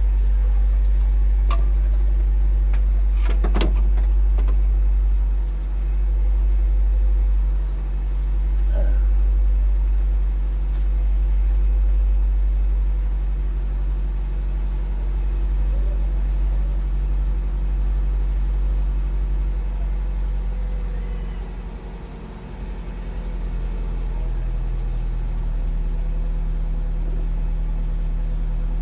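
Car engine idling steadily, a constant low hum with a few sharp clicks in the first few seconds; the hum dips briefly about three-quarters of the way through.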